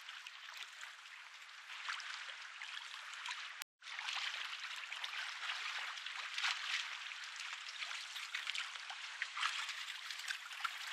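Water splashing and sloshing, a steady hiss of water dotted with many small splashes; the sound drops out for a moment about four seconds in.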